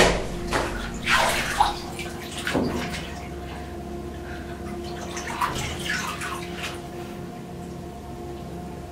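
Water sloshing and splashing in a bathtub as a person moves in it, in a few short bursts over a faint steady hum.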